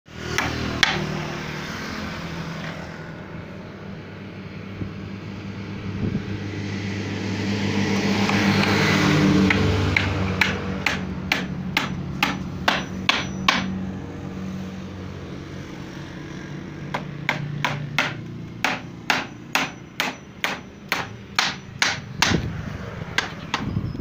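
Hammer blows on wood: two runs of quick, even strikes, about two to three a second, over the steady hum of an electric motor.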